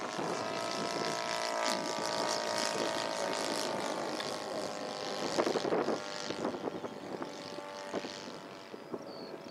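Model NDN Firecracker's engine and propeller flying past overhead: a steady droning note that loses its clear tone after about five seconds and fades toward the end as the plane moves away.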